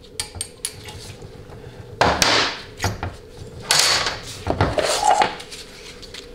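Metal clinks and knocks from taking apart a 700R4 transmission valve body on a workbench: a retaining roll pin is pulled and set down and the valve body is shifted. Light clicks at first, then two louder clattering knocks about two and four seconds in.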